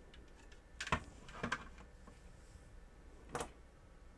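A few light clicks and knocks of 3D-printed plastic droid parts being handled on a workbench: one about a second in, another half a second later, and a third near the end.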